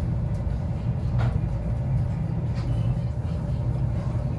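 Steady low rumble of restaurant room noise from the ventilation of a yakiniku restaurant, with a faint clink of tableware about a second in and another short click later.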